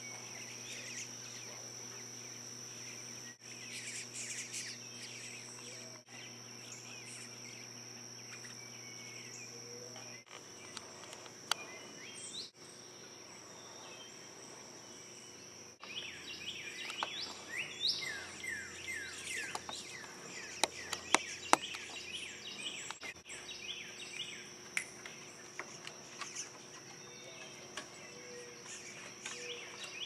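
Bluebirds chirping, with a busy run of quick falling chirps in the middle, over a steady high-pitched insect drone. A few sharp clicks break in.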